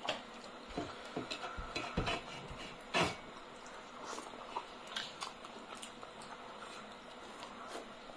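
Brass plates and bowls clinking and scraping under fingers as food is eaten by hand: scattered light clicks and taps, with one louder knock about three seconds in.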